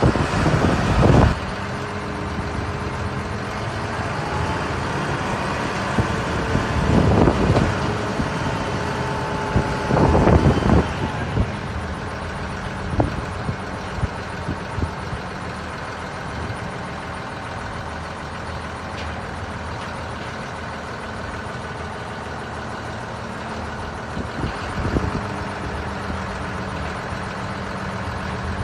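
Diesel engine of a self-loading concrete mixer running steadily, with loud noisy surges at the start and again about 7 and 10 seconds in.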